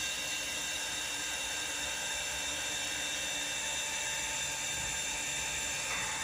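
Small electric motor of a homemade antenna disconnect whining steadily as it drives the connector panel along its drawer slides, pushing the coax connectors back together to reconnect the antennas.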